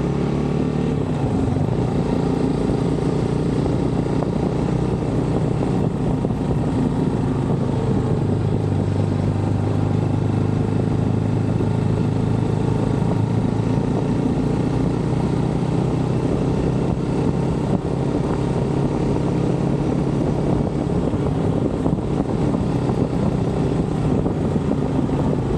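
GPX motorcycle engine running steadily under way at an even throttle, its low engine note holding through the ride.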